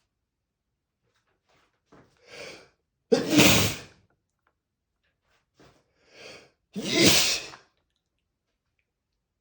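A person sneezing twice, loud and unstifled, each sneeze led in by a couple of short, catching breaths.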